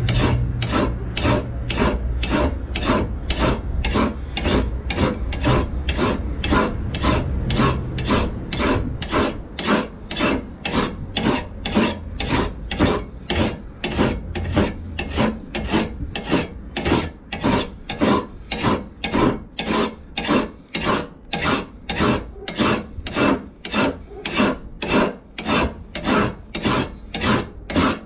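Hand file rasping back and forth across the steel cutting edge of a Makita DLM432Z lawn mower blade held in a vise, in steady strokes about two a second. The file is putting the sharpening angle back onto the blunt, stone-chipped edge along the blade's original profile.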